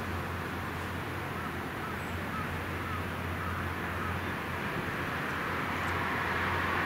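Steady distant harbour rumble with a constant low hum, and a faint run of small bird calls, about two a second, in the first half.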